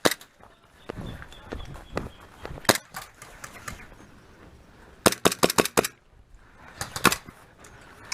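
Airsoft guns firing in sharp cracks: a single shot, another a couple of seconds later, then a quick string of about six shots around five seconds in and two or three more a second or so after.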